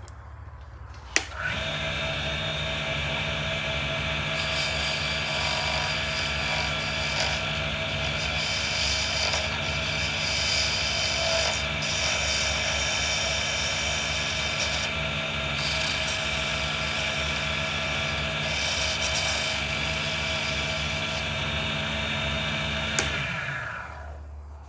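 Lathe switched on with a click and running at a steady speed while a resin pen blank spins, with a rougher hiss coming and going as the blank is worked; near the end it is switched off and spins down.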